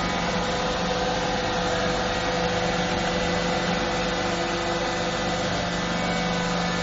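Steady industrial machinery drone in a factory: an even hiss with a low hum and a constant mid-pitched tone, unchanging in level.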